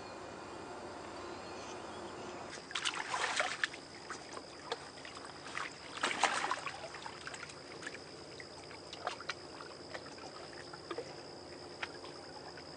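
Water splashing in two short bursts, about three and six seconds in, then scattered drips and small splashes as a common carp is handled in a wet sling at the water's edge. A faint steady high whine runs underneath.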